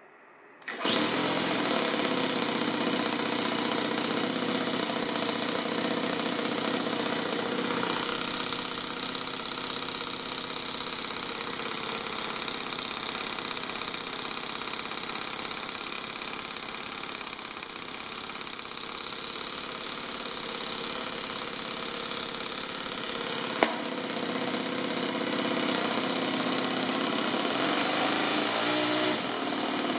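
Toyan FS-S100 single-cylinder, single-overhead-cam four-stroke nitro model engine running steadily at idle, coming in abruptly about a second in. A single sharp click near the end.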